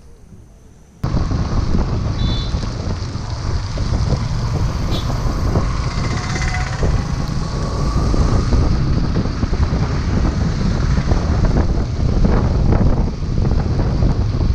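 Wind buffeting the microphone of a camera on a moving motorcycle, with engine and wet-road noise under it, riding in rain. It cuts in suddenly about a second in, after a quieter moment.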